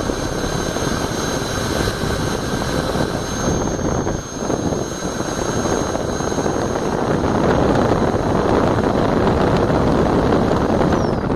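Electric air-mattress pump blowing a steady rushing stream of air at a fidget spinner, with a high steady whine from its motor. Near the end the pump is switched off and the whine falls away.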